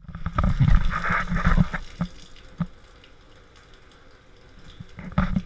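Water running from a hand-held sprayer hose over a puppy in a stainless-steel grooming tub, with loud bursts and knocks in the first two seconds, then a quieter steady spray.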